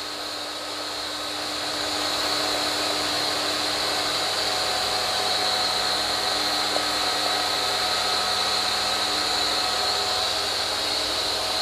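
Bosch Easy Aquatak 120 pressure washer's electric motor and pump running steadily with a high whine. It gets louder a second or two in. The pump is drawing in water and purging air before it sprays.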